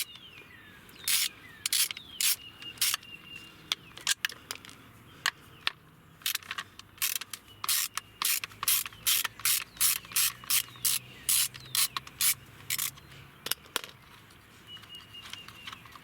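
Ratcheting hand tool clicking in short strokes while a screw holding a cooling fan module is backed out. The clicks are sparse at first, then come a few per second through the middle and second half.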